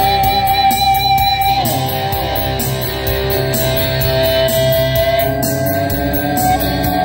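Stratocaster-style electric guitar playing a lead melody of long, held notes that slide and bend in pitch, over a backing track with a steady beat.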